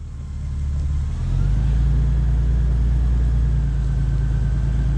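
A car engine pulling away and running steadily, with a heavy low rumble. Its pitch rises about a second in, then holds.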